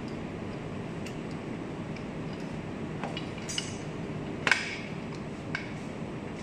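A few sharp metal clinks from a hand tool working a fastener on the mask machine's metal guide-rack frame. The loudest clink comes about halfway through, over a steady low workshop hum.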